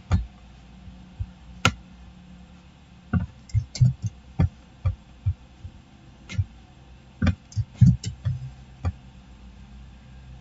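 Irregular computer mouse clicks and keyboard key presses, about a dozen and a half sharp clicks, some in quick runs, over a faint steady low hum.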